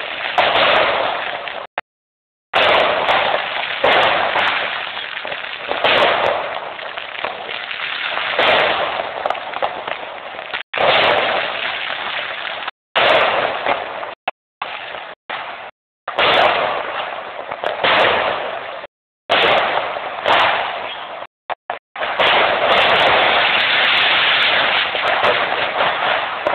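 Aerial fireworks bursting and crackling, a dense run of sharp pops and crackles with no letup. The sound cuts out abruptly to silence several times.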